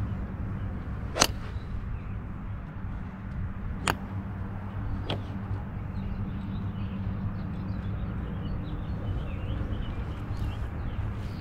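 A golf iron strikes a ball off a range mat about a second in with one sharp crack, followed by two fainter sharp clicks a few seconds later. A steady low hum runs underneath.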